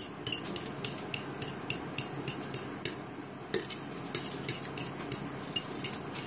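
A metal utensil stirring beaten egg yolks in a heatproof bowl, clinking against the bowl about three or four times a second.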